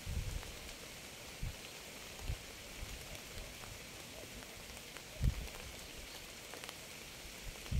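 Steady rain falling, an even hiss, with a few brief soft low thuds.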